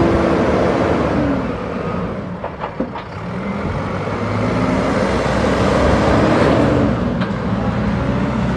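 Caterpillar TH406 telehandler's turbo diesel engine running and revving as the boom comes down and the machine moves off. The engine note drops about two seconds in, with a couple of short knocks, then climbs again.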